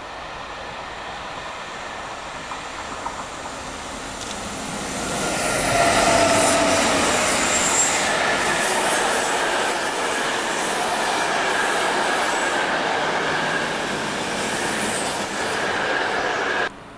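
Passenger train coaches rolling past on the rails, with a steady rush of wheel and rail noise that swells about four seconds in. Some high-pitched wheel squeal sounds at times. The sound cuts off suddenly just before the end.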